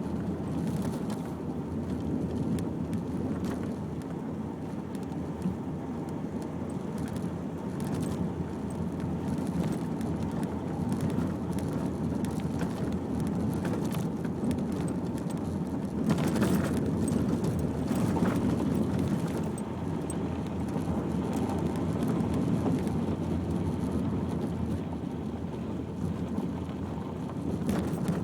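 Car running slowly over a rough unsurfaced track: a steady low rumble of engine and tyres with scattered knocks and rattles from the bumps, louder for a few seconds about two-thirds of the way through.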